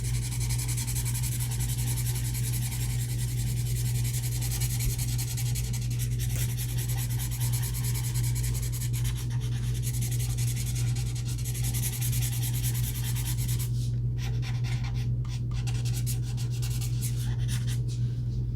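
Ohuhu alcohol marker nib rubbing back and forth on paper in many quick strokes, pausing briefly a few times near the end, over a steady low hum.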